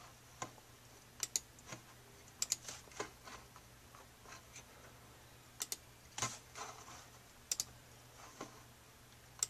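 Quiet, sharp clicks at a computer, many in quick pairs, every second or so.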